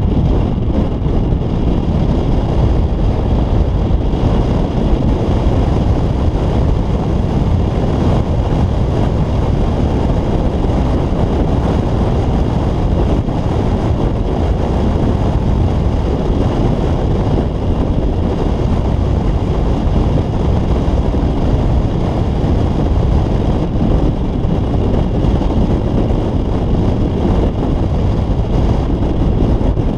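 Steady wind buffeting on a roof-mounted camera's microphone, mixed with the road noise of a Toyota Tundra pickup driving downhill.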